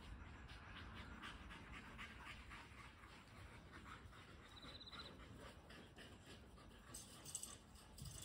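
Faint dog panting in a quick, even rhythm.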